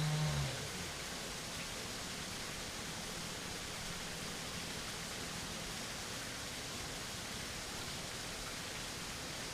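Steady rush of river water, an even hiss that does not change. In the first half second a low, wavering pitched sound dies away.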